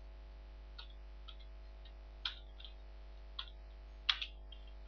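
Computer keyboard keystrokes: about seven separate key clicks at irregular spacing, the loudest a quick pair about four seconds in, over a steady low mains hum.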